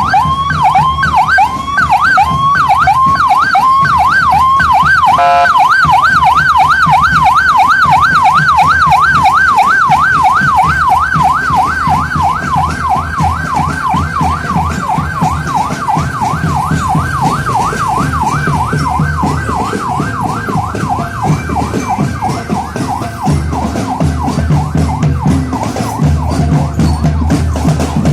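Electronic siren wailing, a tone sweeping up and down, that switches to a faster yelp about five seconds in and grows fainter in the second half. Bass-heavy music pounds underneath, coming more to the fore near the end.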